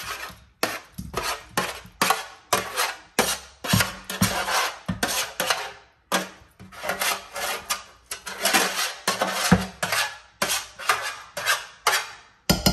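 A flat spatula scraping pan juices and roasted vegetables off a metal baking tray into a pot: a quick series of short scraping strokes and knocks against the tray and pot.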